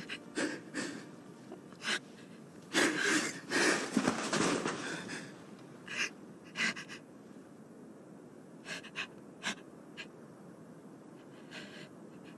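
Sharp gasps and laboured, wheezing breaths of a woman dying from a stab wound, choking on blood. They come in irregular bursts, heaviest a few seconds in, then weaker and further apart toward the end.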